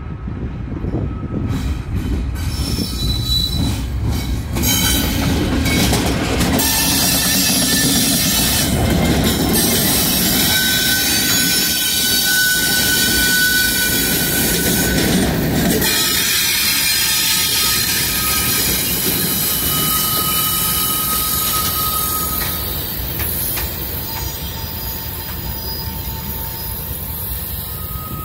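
Norfolk Southern diesel freight locomotives, one an EMD SD70ACe, passing close with their engines running and a heavy rumble, loudest in the middle and easing near the end as a hopper car rolls by. High steady wheel squeal from the rails comes and goes.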